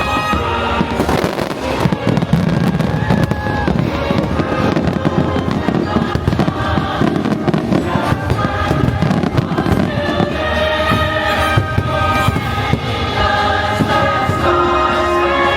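Fireworks bursting in quick succession over a fireworks-show soundtrack of music with a choir singing.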